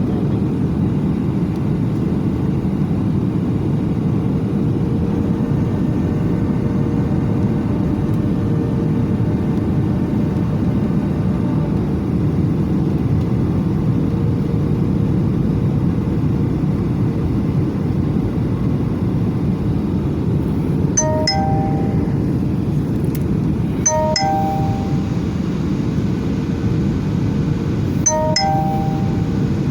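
Airliner cabin noise, a loud steady low rumble of engines and airflow. Near the end a two-tone cabin chime sounds three times, a few seconds apart.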